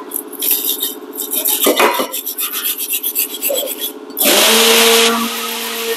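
Wire brush scrubbing rust and brake dust off a rusty rear brake caliper bracket, in rapid back-and-forth scraping strokes. About four seconds in, a loud steady hiss starts; it is loud for about a second, then carries on more quietly.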